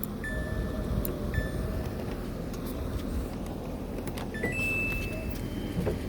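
Washing machine control panel beeping as it is set: two matching beeps close together, then a short blip and a higher, longer beep about four and a half seconds in, over a low steady hum.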